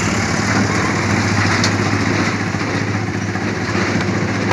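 An engine running steadily, a low hum under a broad hiss.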